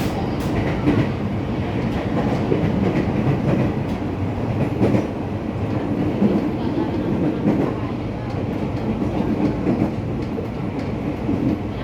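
Ex-Tokyo Metro 6000 series electric train (car 6819) running, heard from inside the car: a steady rumble of wheels on rail with a few sharp clicks from rail joints.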